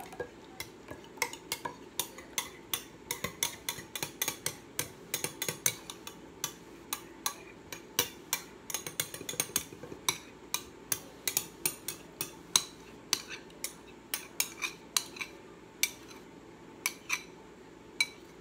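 A spoon scraping and clinking against the inside of a glass bowl, with irregular sharp clicks about two or three a second, as thick sauce is scraped out of the bowl into a glass jar.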